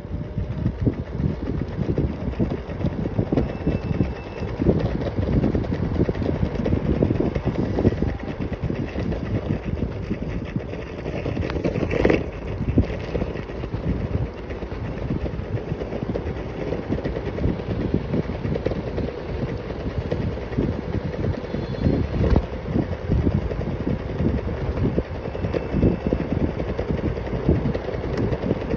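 Wind buffeting the microphone over the rumble of a stand-up scooter's wheels rolling on asphalt, with a short sharp knock about twelve seconds in.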